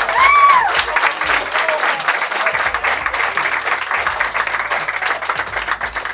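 Small audience clapping and cheering, with a shrill high cheer at the start. The applause slowly thins out and grows quieter.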